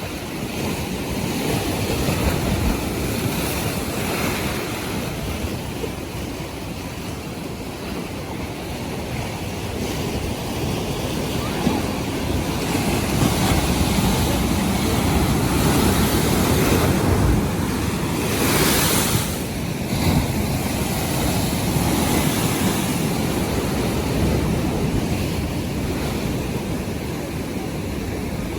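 North Sea waves washing in as surf, a steady noise that swells and eases, with wind buffeting the microphone. A brief hissing rush about two-thirds of the way through.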